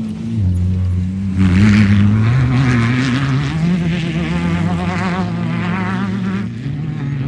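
Off-road race car engine running hard. Its pitch dips about half a second in, then climbs and wavers, and the sound eases slightly near the end.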